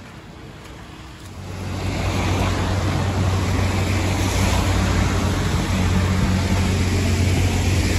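A car driving along: a low engine drone with tyre and road noise. It swells about a second and a half in and then runs steadily.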